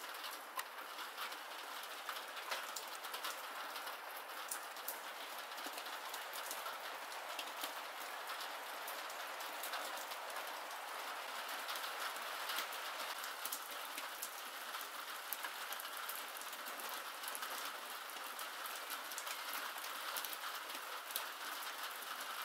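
Steady rain falling, with many small drop ticks.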